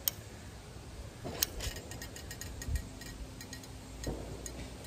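Sealant tube being squeezed along a roof seam: one sharp click at the start, then a scatter of small clicks and ticks, most of them bunched about a second and a half in.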